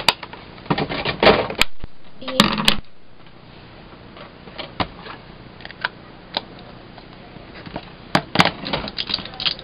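Rapid clattering clicks and taps of plastic ink-pad cases and stamping blocks being handled on a tabletop. They come in two flurries, one in the first few seconds and one near the end, with scattered single ticks between.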